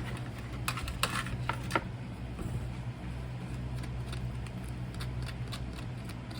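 A few light clicks and clinks as freshly cast copper pieces are handled, over a steady low hum.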